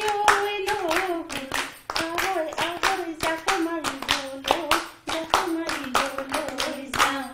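A woman singing a song while a group of women clap along in time, about three or four claps a second.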